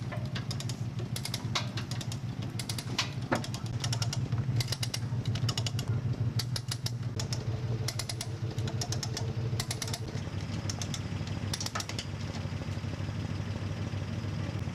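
Hand-cranked come-along winch ratcheting in irregular clusters of sharp clicks as it pulls the van's front wheels up onto a tow dolly, over the steady low hum of an idling engine.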